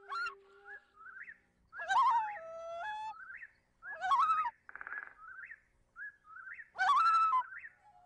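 Instrumental soundtrack music with bird-like chirps. Short rising chirps repeat about every half second between whistled, bending flute-like notes.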